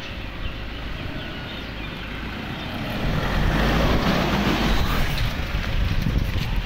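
A motor vehicle running close by. Its noise swells about three seconds in and stays up, with a heavy low rumble.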